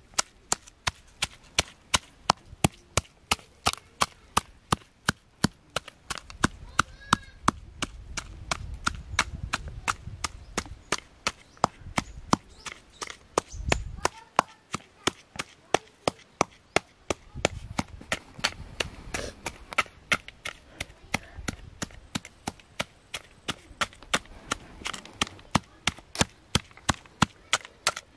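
Pestle pounding chillies and garlic in a coconut-shell bowl: steady, sharp knocks at about three a second.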